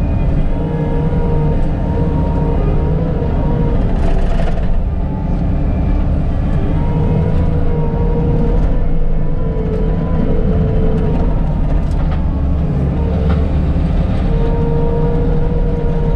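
Bobcat T650 compact track loader's diesel engine running steadily under work, with a whine that wavers slightly in pitch. A brief harsher noise breaks in about four seconds in.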